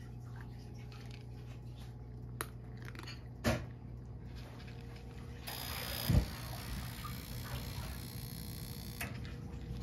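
Cat chewing and crunching dry kibble from a ceramic dish in small faint clicks, over a steady low hum. A dull knock comes about three and a half seconds in and a louder one about six seconds in, with a stretch of hiss in the second half.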